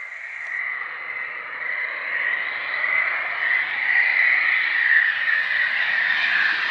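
Eurofighter Typhoon's twin EJ200 turbofan engines on final approach: a high jet whine over a rushing roar, growing steadily louder as the jet closes in.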